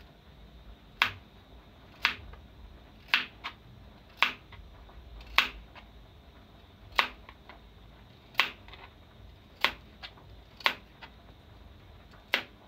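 Kitchen knife slicing a carrot into rounds on a plastic cutting board: a sharp knock of the blade on the board with each cut, about once a second, with a few fainter ticks between.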